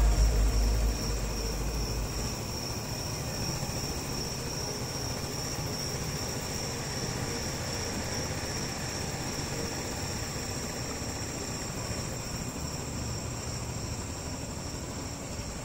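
Royal Enfield Bullet motorcycle running steadily through a road tunnel, a constant drone of engine and road noise heard from the bike. Background music fades out in the first second or two.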